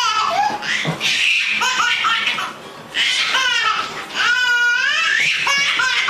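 High-pitched squealing laughter: repeated shrieks that rise and fall in pitch, in bursts with short breaks between them.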